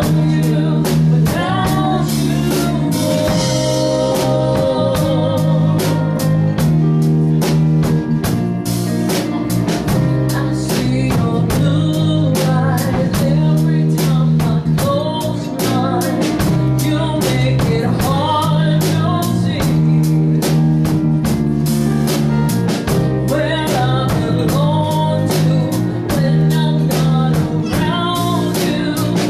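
A woman singing a song into a handheld microphone over backing music with a steady drum beat and guitar.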